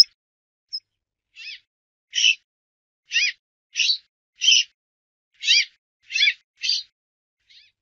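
Brambling calling: two thin, high short notes, then a run of about eight fuller short calls, roughly one every half-second to second, with a faint last one near the end.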